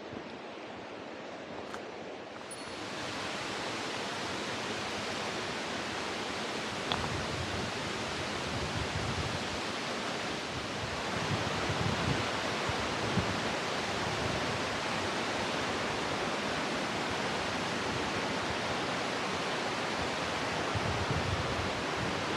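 Steady rush of water in a mountain gorge, from a waterfall or river rapids, growing louder about three seconds in and again about eleven seconds in.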